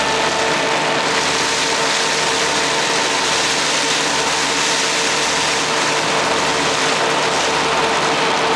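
Kubota D1105 three-cylinder diesel engine of a Madvac ride-on vacuum running steadily at constant speed, with a steady whine over the engine noise.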